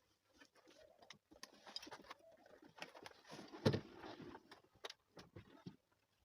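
Faint scattered clicks and knocks from hands-on work on a car door, with one louder thump a little over three and a half seconds in.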